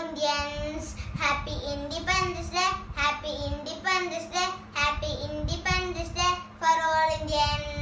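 A young boy singing a song alone, without accompaniment, in a string of held, gliding notes.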